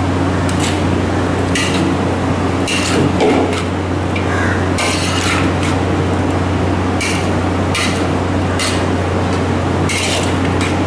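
Metal spatula scraping and turning vegetables with grated-coconut dressing in a wok, in irregular strokes every second or so, over a steady low hum.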